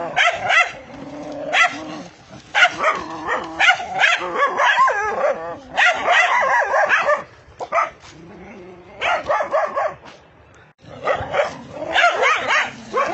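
Dogs barking fiercely in rapid volleys of short barks, easing into a brief lull about two-thirds of the way through before the barking picks up again.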